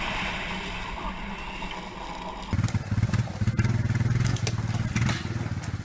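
A dirt bike's engine running under a steady hiss of water spray. A sudden cut about two and a half seconds in brings a louder quad ATV engine revving unevenly under load as it climbs out of a muddy gully, with scattered knocks.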